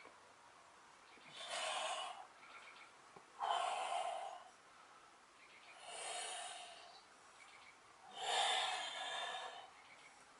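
A climber's forceful, hard breathing while bouldering: four heavy exhalations about two seconds apart.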